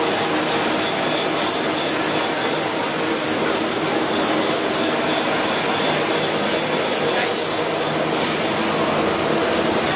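YT two-colour printing machine for PE film running: a steady, even mechanical noise from its turning rollers and drying fans, with no pauses.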